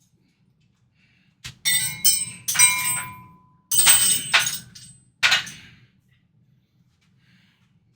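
Metal weights clanking and clinking against each other: several sharp clanks with a ringing tail, grouped in three bunches about a second apart, then stopping.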